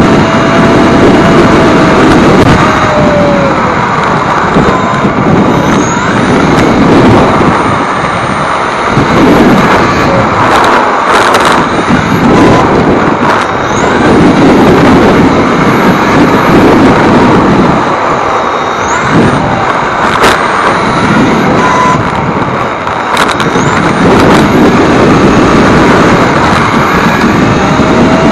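Loud rushing road and wind noise picked up by a camera mounted on an Xray T4 1/10 electric touring car lapping an asphalt track. The noise swells and dips as the car corners and accelerates. Several times the 13.5-turn stock brushless motor's high whine rises as the car speeds up.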